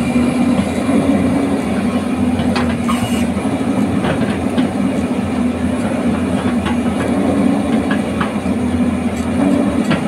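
Hyundai 215L crawler excavator's diesel engine running steadily under hydraulic load as it swings a loaded bucket of mud over to a dump truck, with a few sharp knocks and clanks scattered through.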